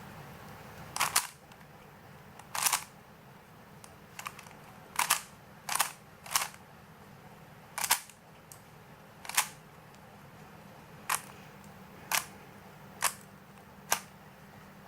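Rubik's cube being scrambled: its plastic faces turned by hand one after another, each turn a sharp click, about a dozen at uneven intervals.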